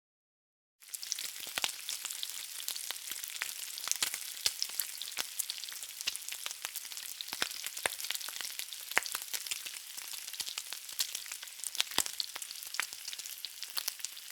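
Dense crackling and sizzling noise with scattered sharp pops, starting suddenly about a second in after dead silence.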